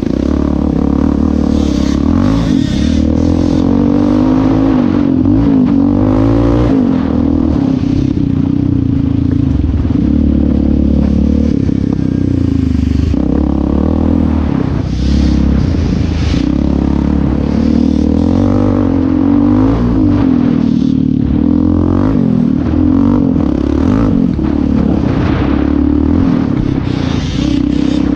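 Yamaha Raptor 700R sport quad's single-cylinder four-stroke engine running hard on a trail ride, revs rising and falling with the throttle. Rocks and dirt clatter and scrape under the tyres and chassis over the rough ground.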